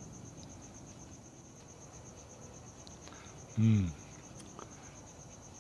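Crickets chirping in a steady, fast-pulsing high trill. About three and a half seconds in, the man lets out one short voiced sound that falls in pitch, like a brief 'hmm'.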